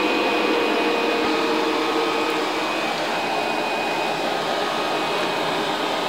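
VEREFA L11 Pro robot vacuum running on carpet at its maximum "super" suction setting: a steady whir with a thin high whine, and a lower hum that fades out about halfway through.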